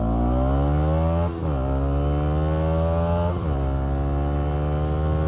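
Bajaj Pulsar NS200's single-cylinder engine, run through an aftermarket exhaust with its dB killer removed, accelerating hard at full throttle. The revs climb steadily in each gear, then the pitch drops sharply at upshifts about a second and a half in and again about three and a half seconds in, before rising once more.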